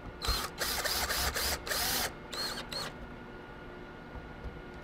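DeWalt cordless drill-driver running in a run of short trigger bursts into a wooden mounting block, its motor whine rising as each burst starts. It stops about three seconds in.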